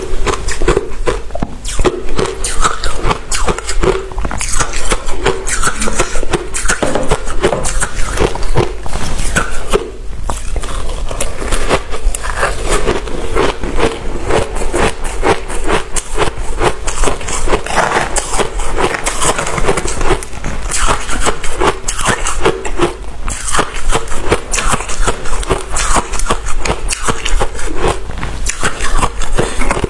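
Freezer frost being chewed: dense, rapid crunching close to a clip-on microphone, with a brief pause about ten seconds in.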